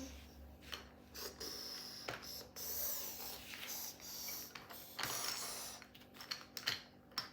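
A child imitating a running train with his mouth: a series of breathy hissing puffs of varying length, with a few sharp clicks near the end.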